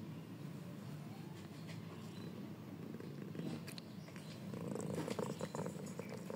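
Cat purring steadily in a low, pulsing rumble, close up. Soft rustling and clicks grow louder about two-thirds of the way through.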